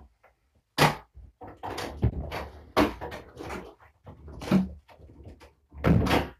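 Irregular knocks and clattering of a pet carrier and other stored things being handled and moved, about a dozen hits over six seconds, loudest about a second in and again near the end.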